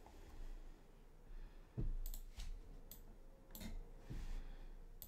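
Clicking at a computer desk: a soft low knock a little under two seconds in, then about five short, sharp clicks over the next two seconds.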